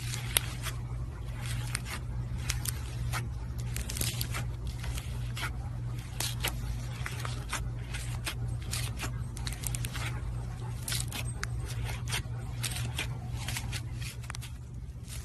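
Slime being squeezed and pressed by hand, making a continuous stream of irregular clicks and small pops, over a steady low hum.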